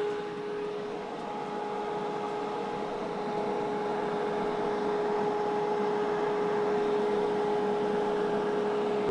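Fuji Paudal Pulverizer hammer mill running at a steady speed: an even machine hum with a constant high whine over it.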